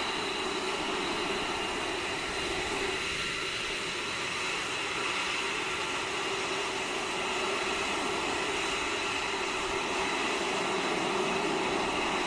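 Steady jet aircraft engine noise: an even rushing hum with a faint high, steady whine on top.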